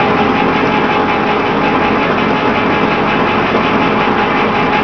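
Electric can opener's motor running steadily as it cuts around the lid of a can.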